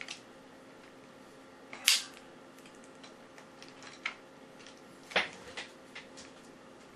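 A few sharp clicks and knocks of a wooden dual-camera mount being fitted onto a tripod head. The loudest knock comes about two seconds in and another sharp one a little after five seconds, with smaller clicks between.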